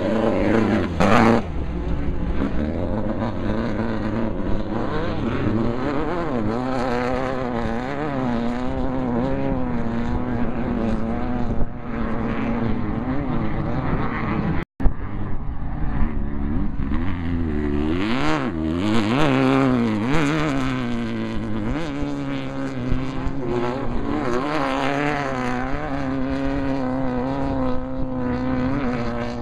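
Off-road race vehicles' engines revving up and down as they run at speed, the pitch rising and falling again and again. There is a louder swell about a second in and a split-second dropout about halfway through.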